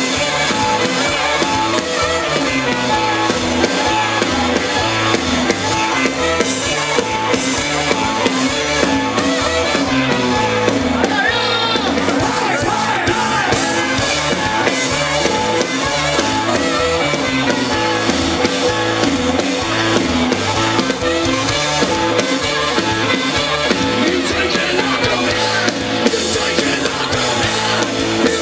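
Rock band playing, with a steady drum-kit beat and some singing.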